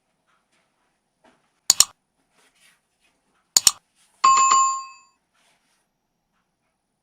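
Two sharp double clicks, then a short metallic, bell-like ring with a quick rattle that dies away within about a second.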